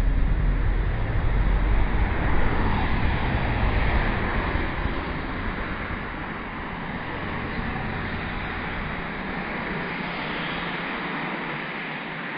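Street traffic noise: a low rumble, heaviest for the first few seconds, that eases into a steady hiss.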